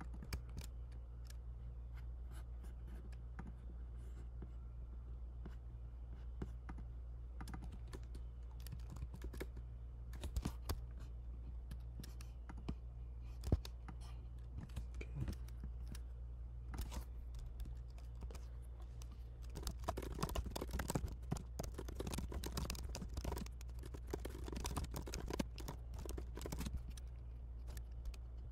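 Typing on a computer keyboard: scattered keystrokes at first, then a fast, continuous run of typing about twenty seconds in.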